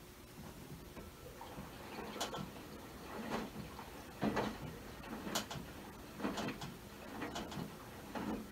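Maytag washing machine in its wash cycle: a regular clunk and swish of water and laundry about once a second, faint at first and growing louder over the first couple of seconds.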